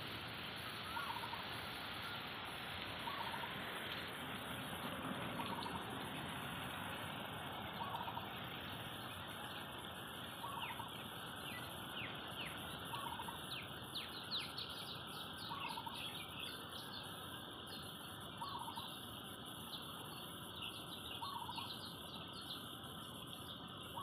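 Steady hiss of a water spray falling onto garden plants and leaves. A short bird call, likely a domestic fowl, repeats every two to three seconds, and brief high chirps or ticks join from about halfway.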